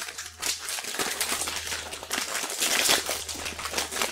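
Plastic snack bag crinkling and rustling continuously as it is pulled open and handled.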